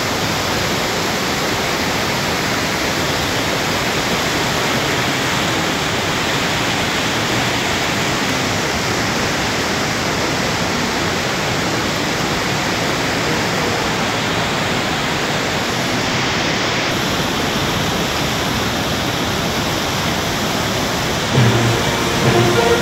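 Floodwater of the Manjira river rushing in a steady, even hiss-like noise that does not change. Background music comes in near the end.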